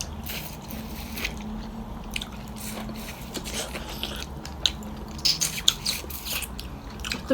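A person chewing a mouthful of thenthuk noodle soup with meat up close: a run of small, irregular wet clicks and crunches.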